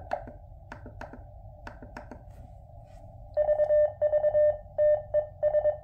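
QRP Labs QMX transceiver heard through a powered speaker: receiver hiss with a series of clicks as the band is switched to 40 meters. About three seconds in, its CW sidetone, a steady tone, is keyed in Morse from a paddle, with the low thumping on each transmitted element that is a known fault of this radio, here on 40 m where the operator finds it least.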